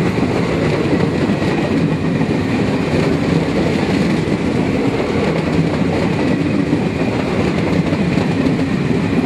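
Indian Railways passenger train running along the track, a steady, loud running noise of the carriages on the rails.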